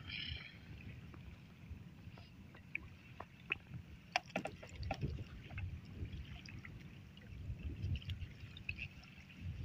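Wet gill net being hauled hand over hand into a wooden boat: water dripping and lapping, with a few light clicks from the mesh and floats, over a low, uneven wind rumble on the microphone.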